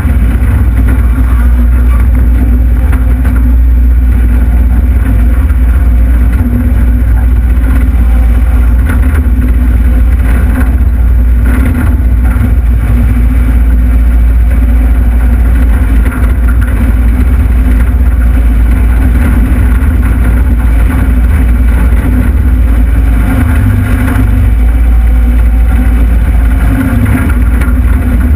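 Takeuchi TL26 compact track loader's diesel engine running steadily under load while the machine scrapes and spreads dirt, heard from inside the operator's cab.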